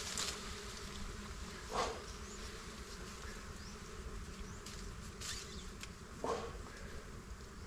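A swarm of bees buzzing steadily around a hive being smoked out for its honeycomb, with a few short sharp sounds about two and six seconds in.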